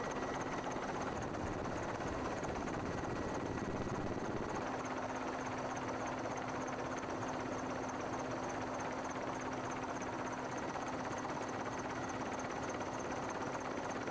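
Steady helicopter engine and rotor noise, heard from inside the cabin, with an even hum that does not change.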